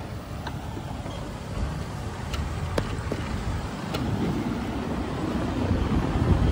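Wind rumbling on the microphone with street traffic noise while riding a shared electric bike, growing louder as the bike gathers speed. A few sharp clicks sound in the first half.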